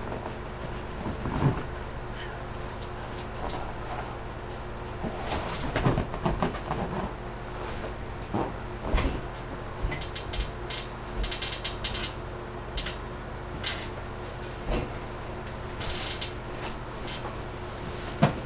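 Large 96-inch latex balloon rubbing and squeaking in short, scattered bursts as a person climbs onto it and shifts his weight, with a few clicks, over a steady low hum.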